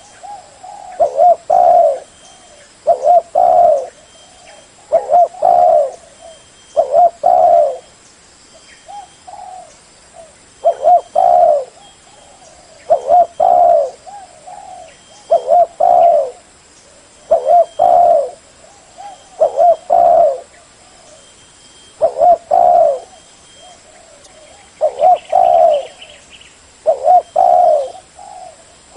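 Spotted dove cooing: a low, several-note coo phrase repeated about every two seconds, steady and loud.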